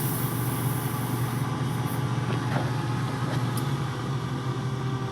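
Air fryer running: a steady fan whoosh with a low hum while it cooks, with a few faint ticks.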